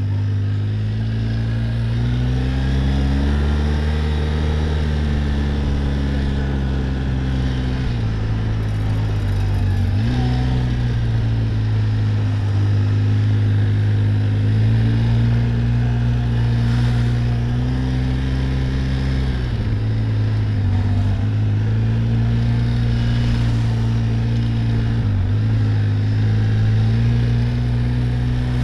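Quad bike (ATV) engine running steadily while riding along a trail. Its pitch dips briefly and picks up again several times as the throttle eases off and opens.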